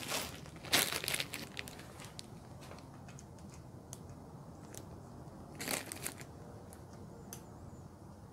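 Hands setting bolts into an engine's metal cam cover: a short burst of rustling and crinkling at the start and another around six seconds in, with scattered light clicks in between.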